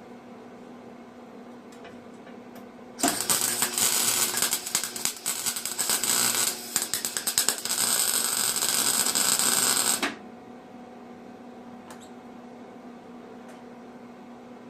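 Electric arc welding crackling as a saw blade is tack welded onto its handle. It starts about three seconds in, sputters briefly about halfway, then runs on and cuts off suddenly about ten seconds in.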